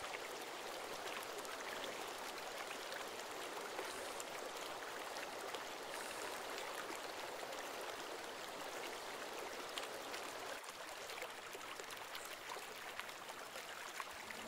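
A rapidly flowing river, its water rushing with a steady, even hiss.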